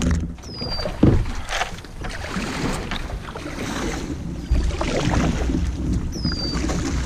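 Water splashing and sloshing around a fishing kayak, with wind rumbling on the microphone. A few short, high, falling whistles come about half a second in and again near the end.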